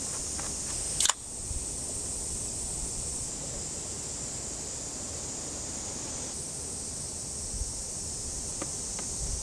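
Steady high-pitched insect chorus, with one sharp click about a second in and a couple of faint ticks near the end.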